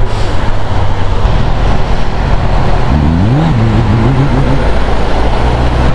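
Motorcycle riding at road speed: heavy wind rush over the helmet microphone over the steady note of the Suzuki's engine, which rises and falls briefly about three seconds in.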